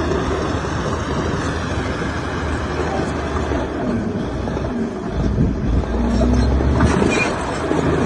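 Heavy diesel earthmoving machinery running, a steady low engine note under a broad mechanical noise that grows louder about five and a half seconds in.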